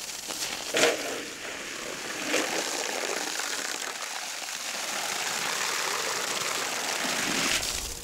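Garden hose spraying water into a metal basin of leafy greens: a steady splashing rush, with louder splashes about one second and two and a half seconds in.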